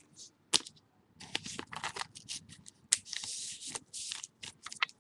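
A trading card and its clear plastic sleeve being handled: a single click, then from about a second in a run of short, quick plastic rustles and scrapes.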